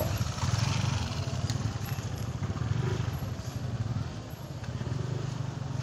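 A motor engine running steadily, a low, even hum.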